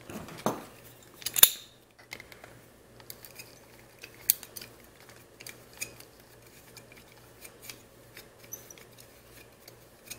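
Steel slip-joint pliers clicking and scraping on the plastic lens ring of an IP camera as they grip and twist it: a sharp clink about one and a half seconds in, then scattered small ticks.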